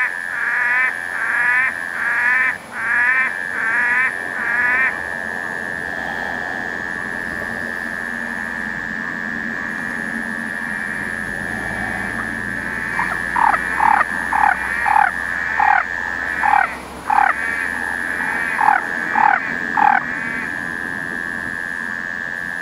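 Frogs calling, among them a barred frog (Mixophyes fasciolatus), in two bouts of short repeated notes. First there are about seven wavering notes, then about a dozen notes that fall in pitch. Under them runs a steady high-pitched drone.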